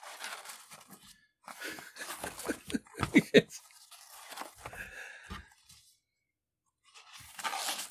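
Paper pages of a spiral-bound book being flipped by hand: rustling in bursts, with a few sharp crackles near the middle and another rustle near the end.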